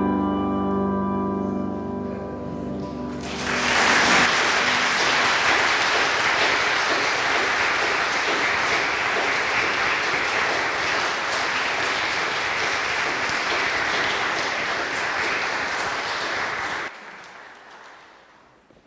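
The last chord of handbells and piano rings out and fades. About three seconds in, a congregation starts applauding steadily, and the applause cuts off sharply near the end.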